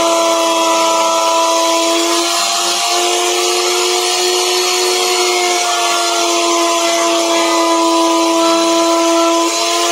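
Hand-held electric router running at full speed, its bit cutting a carved pattern into a wooden board: a steady high whine over the hiss of the cut, the pitch shifting slightly a couple of times.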